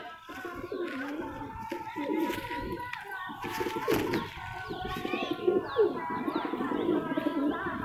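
Many domestic pigeons cooing together in their loft, a constant overlapping warble, with short higher chirps above it, more of them in the second half.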